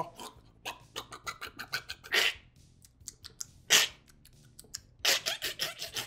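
A man making loud open-mouthed chewing noises, an imitation of someone eating popcorn like a slob: a rapid series of wet smacks and clicks, with two longer noisy bursts about 2 s and 4 s in and a fast flurry of smacks near the end.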